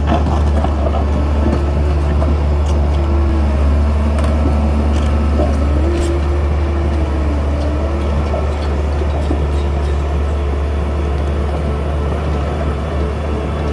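Doosan DX530LC-5 crawler excavator's diesel engine running steadily under load as the machine travels forward on its tracks, on a test run after a field repair. A wavering whine rises and falls over the engine for the first half or so.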